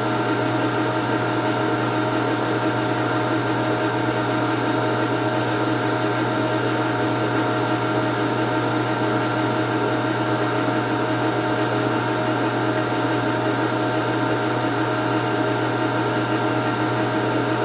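Metal lathe running steadily on slow power feed, its tool taking a light facing cut across the muzzle of a Winchester 1886 rifle barrel: an even motor and gear hum with several steady tones over it. To the machinist the cut sounds like it will not quite clean up the muzzle face.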